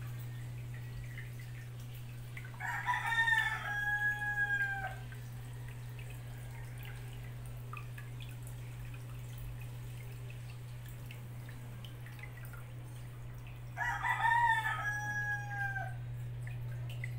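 A rooster crows twice, about eleven seconds apart, each crow ending in a long held note. Under it runs the aquarium filter's steady low hum and the drip of water.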